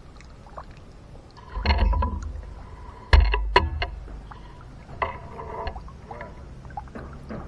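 Landing net with a caught herabuna being lifted out of the water and set down on a wooden pier. There are handling thumps, then a sharp knock about three seconds in, followed by a few lighter knocks.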